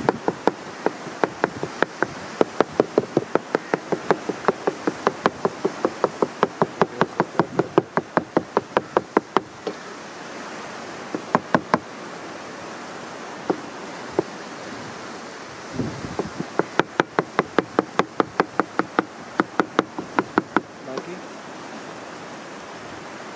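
Kitchen knife chopping raw mince on a plastic cutting board: quick knocks about four a second, in runs that pause around ten seconds in and again for a few seconds after, then a last run that stops a couple of seconds before the end.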